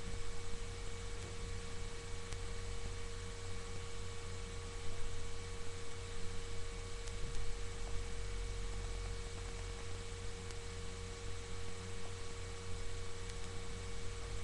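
Steady electrical hum with a constant higher tone over faint hiss: background noise of a webcam microphone.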